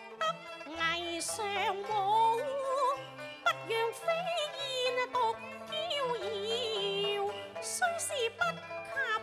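Cantonese opera music from a traditional Chinese ensemble: a gliding, wavering melody line over low held notes, with two sharp percussion strikes.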